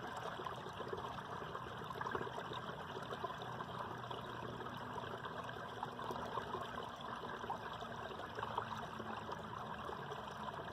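Stream water flowing underneath a mostly frozen-over ice cover, running steadily.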